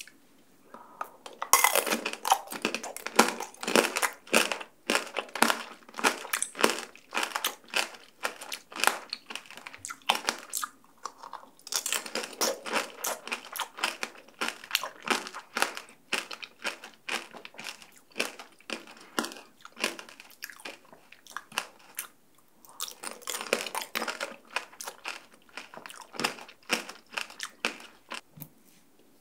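Close-up chewing of a shine muscat grape tanghulu: the hard candy-sugar shell crackles and crunches between the teeth in quick clicks. It comes in three bouts with brief pauses about ten and twenty-two seconds in.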